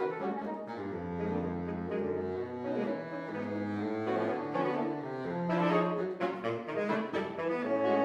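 Saxophone quartet, soprano down to baritone, playing contemporary classical chamber music live: held notes woven in several parts over a low baritone saxophone line. Quicker, busier figures come in around six seconds.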